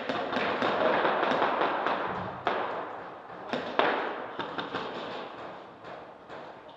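Airsoft guns firing: irregular sharp cracks, several a second, over a loud hiss that starts suddenly and fades away over several seconds.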